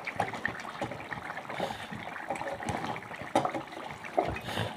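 Freshly added carrot sticks sizzling in hot oil and fried masala in a kadhai, with scattered crackles and a few sharper pops.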